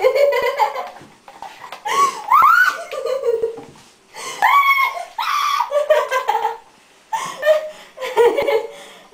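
People giggling and laughing in repeated bursts, with high-pitched squealing rises and short pauses between bursts.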